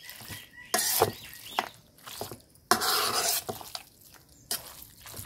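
A spoon stirring and turning a thick mass of grated mango pickle in a stainless-steel bowl, making several separate strokes through the mixture and against the bowl.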